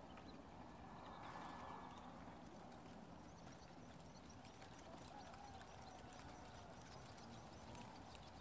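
Near silence: faint open-field ambience with scattered light clicks.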